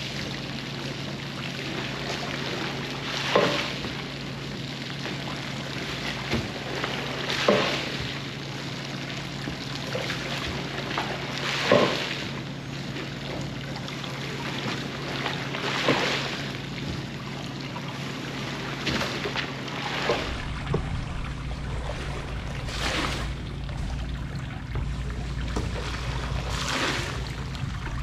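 Rug being wet-washed: water running under a steady machine hum, with a brief swishing stroke about every four seconds as the rug is worked. A deeper rumble joins about two-thirds of the way through.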